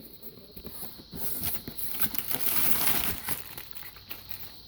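Packaging crinkling and rustling as the knife-set box is opened and its contents handled. It is a busy run of small crackles that gets louder in the middle.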